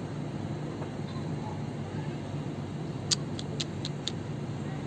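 Steady low rumble of distant city traffic, with a quick run of five short, high-pitched chirps about three seconds in.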